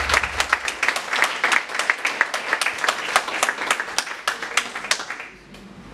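An audience applauding, the clapping dying away about five seconds in.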